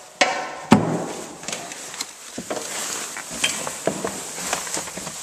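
Scattered clicks and light knocks with rustling, the sharpest click about three-quarters of a second in, typical of hands handling fittings around a machine's cab.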